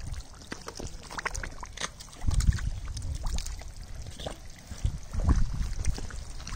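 Muddy water splashing and sloshing as it is stirred by hand while searching for eels, with many small splashes and two spells of heavy low thumps, about two and a half seconds in and again around five seconds.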